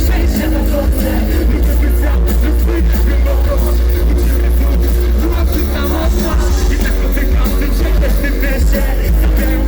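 Loud live concert music, a song played through an arena sound system, with a heavy, steady bass line underneath.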